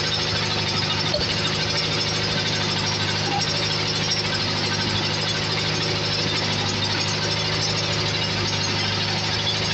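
Truck-mounted crane's diesel engine running at a steady, unchanging speed.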